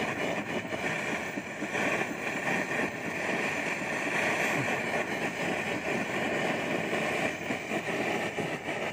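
Gas melting torch burning with a steady, even rushing noise.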